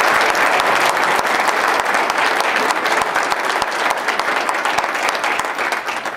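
Audience applauding, a steady crowd of hand claps that tapers off near the end.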